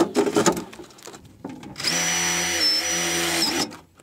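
A few knocks of metal being handled, then a cordless drill runs for about two seconds, driving a screw through the sheet-metal chimney support box into the roof framing. Its pitch dips briefly midway as the motor slows under load.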